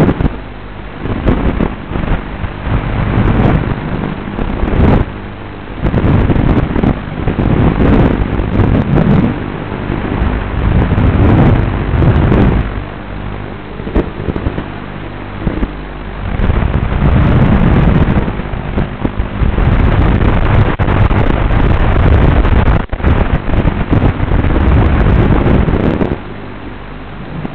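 An FPV quadcopter in flight, heard through its own low-quality onboard audio: rough motor and wind rush surging and easing every second or two as the drone manoeuvres, over a steady low hum.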